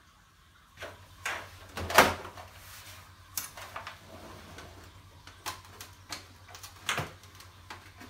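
Knocks, clicks and clatter of a desktop PC's open steel case and its parts being handled, with the sharpest knock about two seconds in and smaller taps after it, over a faint low hum.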